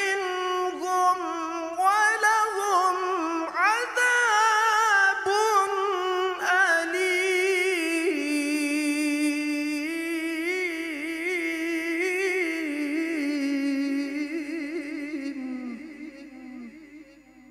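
A man reciting the Quran in the melodic, ornamented tilawah style, with long melismatic runs and wavering ornaments on the held notes. A long held phrase trails off near the end.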